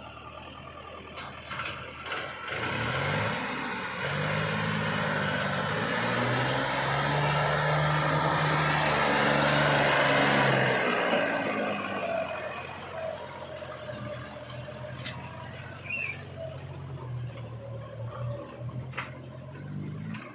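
Heavy machine's engine revving up about three seconds in and holding high and loud, then dropping back about eleven seconds in to a lower, steady run with a few short clicks.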